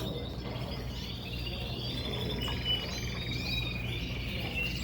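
Many caged canaries singing together: rapid high trills and twittering chirps.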